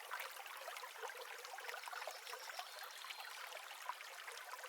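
Faint trickling water, an even light wash with small drips and splashes.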